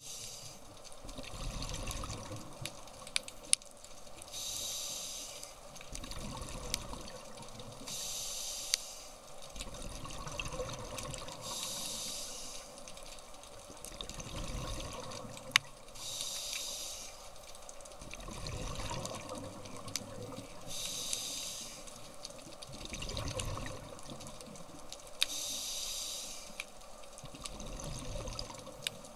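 A diver breathing through a scuba regulator underwater: a hissing inhale, then a low bubbling exhale, repeating about every four seconds, with scattered sharp clicks.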